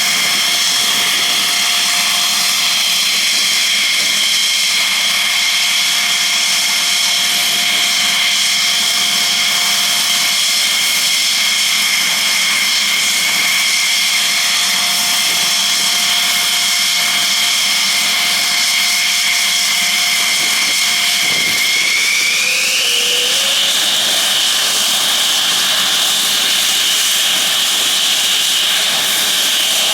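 F-16 fighter jet engines running on the ground, a loud, steady high-pitched whine. About 22 seconds in the whine rises in pitch and holds higher as the engine spools up.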